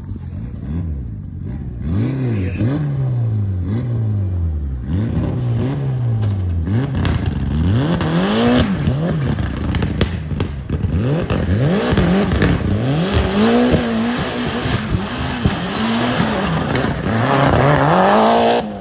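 Mitsubishi Lancer Evolution rally car's turbocharged four-cylinder engine revving hard and changing gear over and over as it drives a gravel stage, with a few sharp pops. It grows louder as the car comes closer and is loudest as it passes close by near the end.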